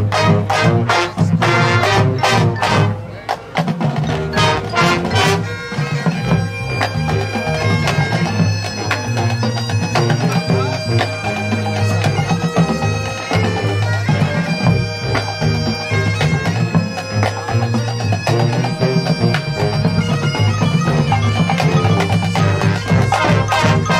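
High school marching band playing its field show: a run of sharp drum and percussion hits over the first few seconds, then the winds and brass come in with held chords over steady percussion.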